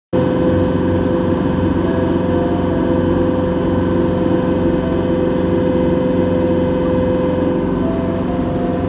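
Water taxi's engine running with a steady, even drone.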